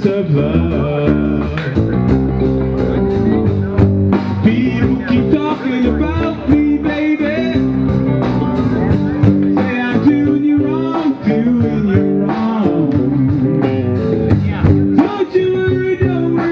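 Guitar-driven blues-rock music.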